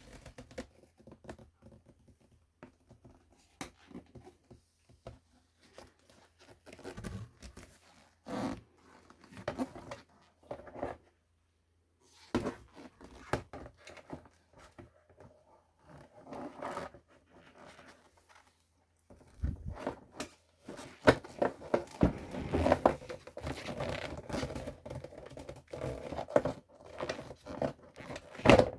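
Hands handling parts and wire: scattered clicks and rustling with tearing- and crinkling-like noises, sparse at first and much busier over the last third.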